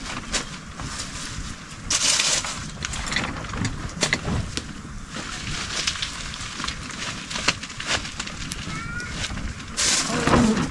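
Open wood fire crackling under a cooking pot, with scattered clicks and clinks of cookware being handled and louder rustling bursts about two seconds in and near the end.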